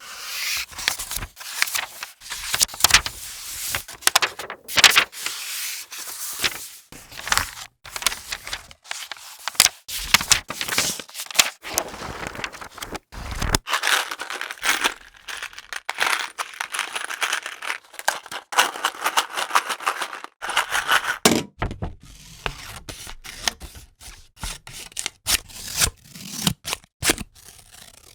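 Irregular tearing and scraping noises with sharp cracks, stopping and starting every second or so, somewhat quieter in the last few seconds.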